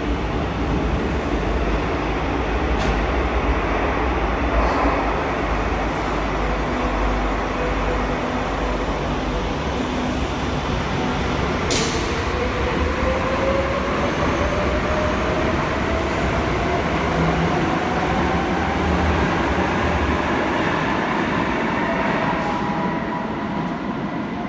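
Madrid Metro series 5500 train in an underground station, rumbling as it stands at the platform and then pulls away. After a sharp click about halfway through, a steadily rising whine builds as the train accelerates out of the station.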